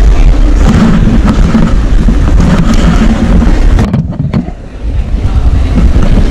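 Airport luggage trolley rolling across a tiled floor, heard close through the camera riding on it: a loud, steady rumble with occasional knocks and rattles. The rumble eases briefly about four seconds in.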